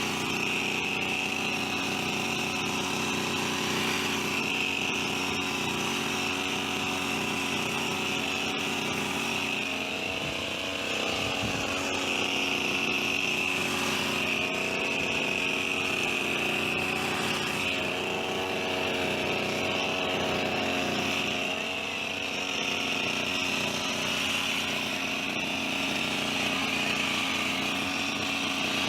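Petrol hedge trimmer's small engine running at high speed, steady throughout, its pitch wavering slightly now and then.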